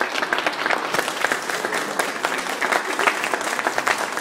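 Audience applauding steadily at the end of a choir song.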